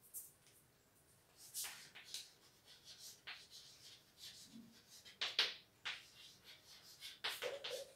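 Chalk writing on a blackboard: faint, irregular scratches and taps of the chalk stick against the board.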